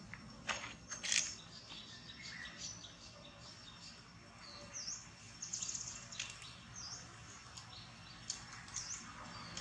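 Birds chirping: short high chirps that dip and rise again, repeated every second or so, with a couple of sharp clicks in the first second and a quiet outdoor background.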